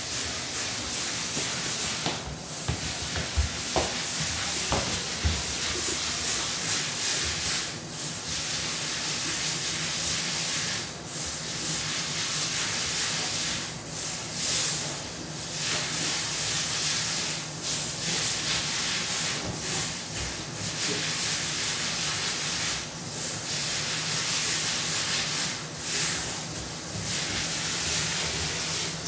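A steady hissing noise that swells and dips every second or two, with a few faint ticks in the first few seconds.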